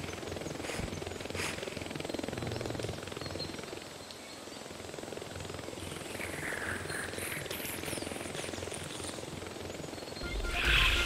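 Hummingbird wings whirring in a fast fluttering buzz, with a few high squeaky chirps about six to eight seconds in. Music swells back in near the end.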